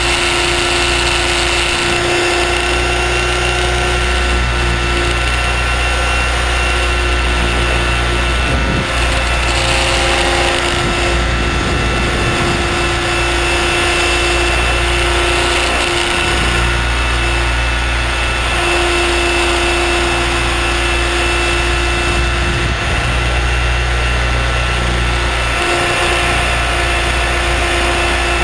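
Align T-Rex 600ESP electric RC helicopter in flight, heard from a camera mounted on it: a steady high motor and gear whine and a lower hum over a strong low rumble of rotor wash and wind on the microphone, holding nearly the same pitch throughout.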